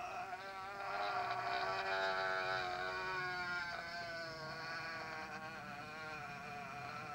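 A man's long, high-pitched, wavering whine of pain, held without a break and sinking slightly in pitch.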